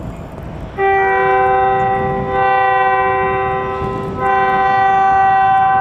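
Air horn of an approaching EMD SD40-2 freight locomotive sounding a chord, starting about a second in. It blows in three long blasts with only brief breaks between them, over wind and the low rumble of the train.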